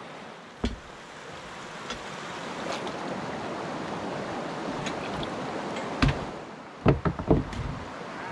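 A floating dock of plastic bins and lumber poled through flooded creek water with a long wooden pole, with a steady rush of stirred water. There is a sharp knock about half a second in, and near the end a heavy thump and then a quick cluster of thumps on the wooden deck.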